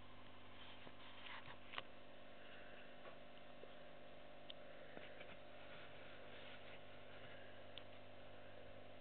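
Quiet room tone with a steady low hum, broken by a few faint short clicks and taps.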